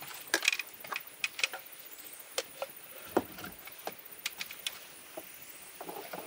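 Irregular sharp knocks and taps of wood, spaced unevenly with short gaps, the loudest a heavier knock about three seconds in.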